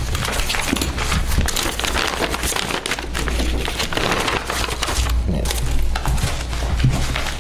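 Paper sheets and manila folders rustling and crinkling as pages are leafed through and folders are handled on a table, with irregular small rustles and taps over a steady low hum.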